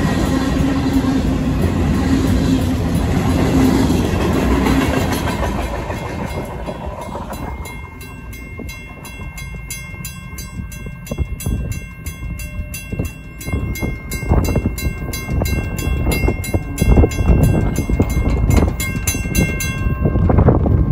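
The tail of a freight train rumbling and clacking over a grade crossing, fading out after about six seconds. Then the crossing's WCH mechanical bell ringing in a steady, rapid strike rhythm, which stops near the end as the gates go up and the activation ends. Wind buffets the microphone in the second half.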